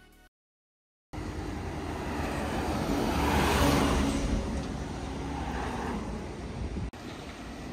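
Road traffic noise beginning after about a second of silence: a steady low rumble with a vehicle passing close by, swelling to its loudest about three seconds in and then easing off.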